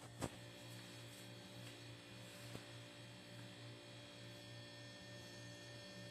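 Near silence over a faint, steady low electrical hum, with a soft tap just after the start.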